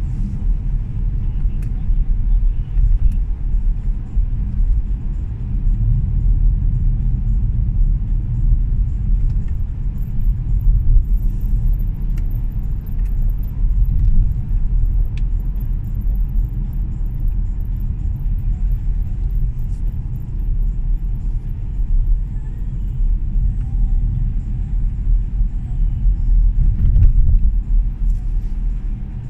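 Steady low rumble of a car driving along a road, with tyre and engine noise.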